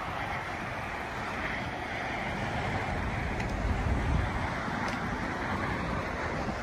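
Wind buffeting the microphone over a steady rushing hiss, with a stronger gust of low rumble about four seconds in.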